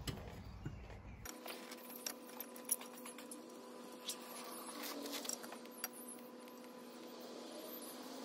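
Faint, scattered metallic clinks and taps of tools and fittings as a power steering pump is bolted into an engine bay, over a steady faint hum.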